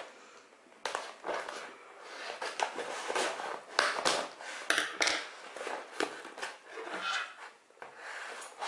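Packing tape being picked at and pulled off a cardboard box, with the cardboard scraped and handled: irregular scratchy rustles and crackles.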